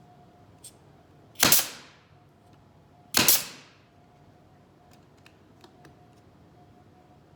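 Pneumatic brad nailer firing twice, about two seconds apart, tacking a seat board in place; each shot is a sharp crack followed by a short hiss of air.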